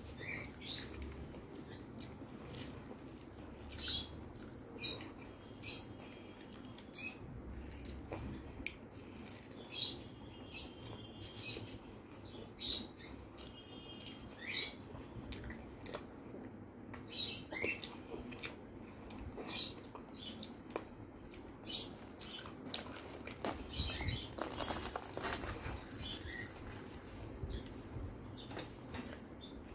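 Close-miked eating sounds: chewing and mouth smacking, with short crackly clicks from fingers tearing puffed, fried luchi and scooping wet potato curry (aloo dum), coming irregularly about once or twice a second.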